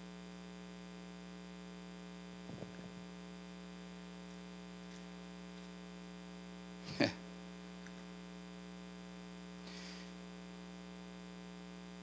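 Steady electrical mains hum with evenly spaced overtones, with one short sharp noise about seven seconds in.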